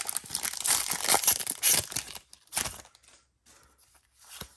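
A foil Pokémon booster pack wrapper being torn open, crinkling, for about two seconds, then a brief second rip and a few faint rustles.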